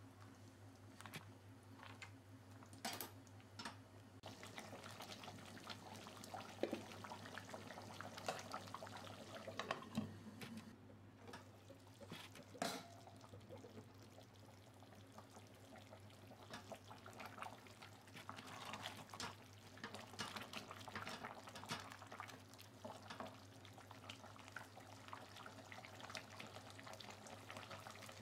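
Chicken curry simmering in a pot, bubbling and spluttering with many small crackles and pops, and a few sharper knocks of a silicone spatula stirring against the pot. A steady low hum runs underneath.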